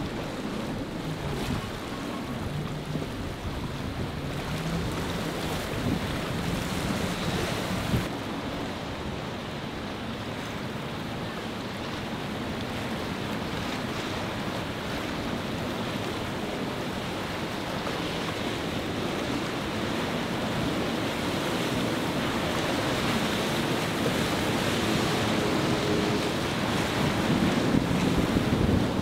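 Outboard motors of center-console boats droning as they run through rough inlet chop, under a steady wash of breaking waves and wind buffeting the microphone. The engine and spray noise grows louder over the last few seconds as a boat comes close.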